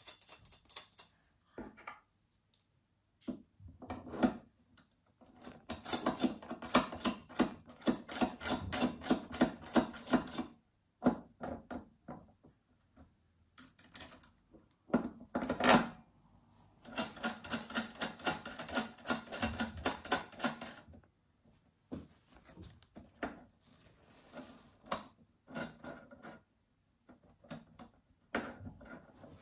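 Hand-tool work on the press: two long runs of rapid, even clicking, one starting about six seconds in and one about seventeen seconds in, each lasting about four seconds, with scattered single clicks and knocks between.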